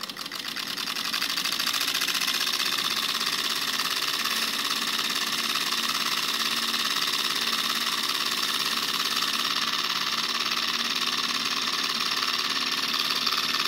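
Homemade pulse motor built from a hard drive, running: its relay and actuator coil switch very rapidly with each magnet pass, making a fast, steady buzzing chatter as the magnet-fitted platter spins. It builds up over the first second or so, then runs evenly.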